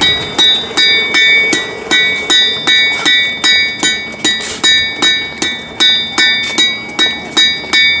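Hammer blows on an anvil in a steady rhythm of about three strikes a second, each blow leaving the steel ringing.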